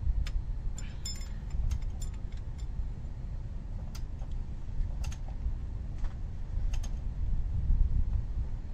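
Irregular light metallic clicks and taps of tools being handled on an engine, over a steady low rumble.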